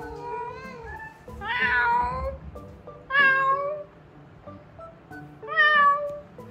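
A person imitating a cat's meow: three drawn-out meows, each bending in pitch, about one every two seconds. Soft background music plays underneath.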